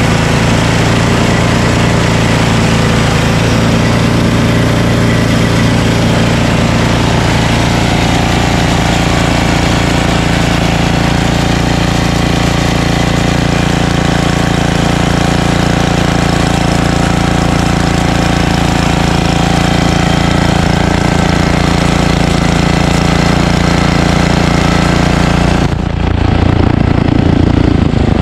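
Ariens ST1128 snowblower's 11 hp single-cylinder Tecumseh Snow King engine running at a steady speed, without surging, after its carburetor pilot jet was cleaned. About two seconds before the end the sound changes abruptly.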